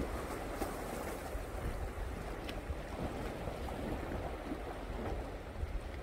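Sea waves washing and splashing against black volcanic rocks along the shore: a steady surf wash, with a low wind rumble on the microphone underneath.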